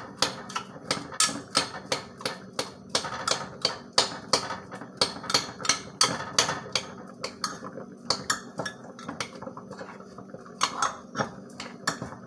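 A metal utensil clinking against a glass measuring cup as thick, melting rebatched soap is stirred in a double boiler, about four quick clinks a second, growing sparser in the last few seconds. A faint steady hum runs underneath.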